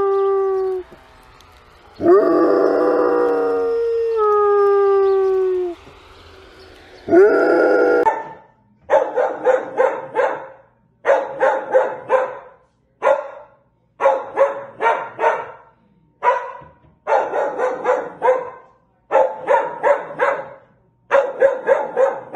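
A dog howling in three long notes that sag in pitch, followed by a dog barking in quick volleys, about eight of them in a row.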